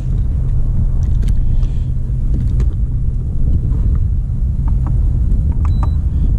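Wind buffeting the camera microphone, a loud steady low rumble, with scattered small clicks over it.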